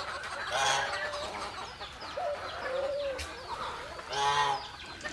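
Farmyard hens clucking, with a louder cackle about a second in and another near the end, and small birds chirping faintly behind them.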